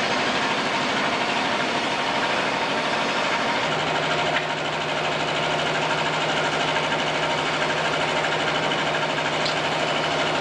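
Westrail's steam locomotive No. 90 standing at the platform, giving off a loud, steady hiss of steam with fast, even mechanical beating. A steady low hum joins about four seconds in.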